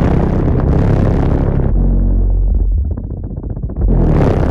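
A 12-inch subwoofer driven by a Toro MR2 mini amp, playing a loud bass test track: deep bass with a long held low note about two seconds in, a brief dip, then heavy bass again near the end. A rough rattle rides on the bass, which is the garage door rattling.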